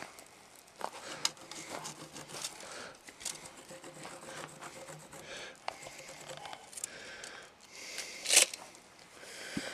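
Clicks and rustles of a tape measure being pulled out and handled against the end of a log, with a brief louder rasp near the end.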